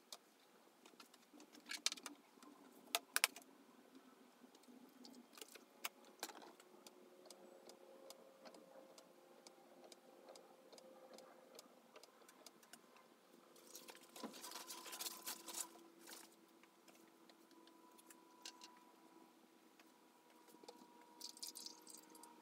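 Faint handling noises from a plastic photo developing tray and paper: scattered light clicks and taps as the tray is gripped and shifted, with a denser rustling spell about two-thirds through and again near the end as a thin sheet is lifted out.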